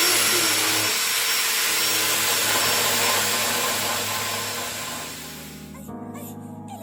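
Steady, loud hissing rush of a power tool running, fading out a little after the midpoint; music starts near the end.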